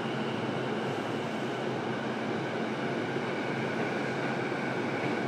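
Steady hum of an E233 series electric commuter train standing at a platform with its doors open: the onboard equipment and ventilation running at a standstill, with a low hum and faint high tones.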